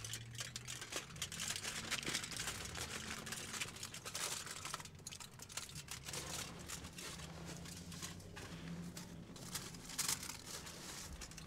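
Taco wrapper crinkling and rustling as it is handled: irregular crackles throughout, with a low steady hum underneath.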